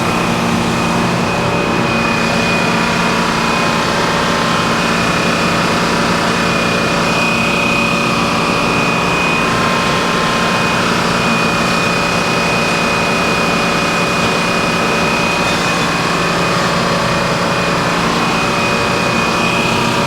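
Sawmill engine running steadily with a thin, steady high whine over it.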